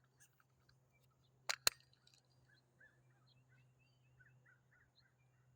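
Birds chirping faintly in short calls over a steady low hum, with two sharp clicks close together about a second and a half in.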